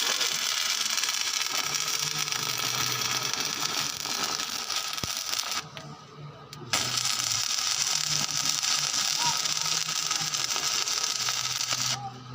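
Electric arc welding: the steady hissing crackle of a welding arc, broken off for about a second midway and then struck again.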